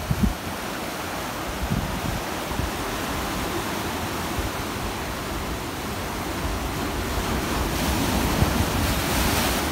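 Ocean surf surging and churning against rocks and through narrow rock channels, as a steady wash of white water. It swells louder near the end as a bigger wave breaks.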